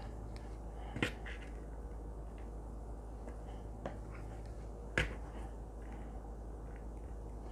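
Sharp clicks and knocks from hands handling plastic and glass mixing bowls while dredging quail in flour: a loud click about a second in, another about five seconds in, and a few fainter ticks between. A low steady hum runs underneath.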